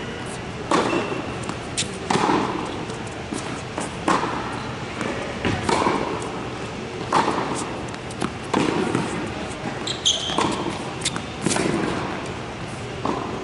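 Tennis rally on an indoor hard court: racket strings striking the ball and the ball bouncing, one sharp hit every second or so, each echoing in the big hall. A short high squeak about ten seconds in.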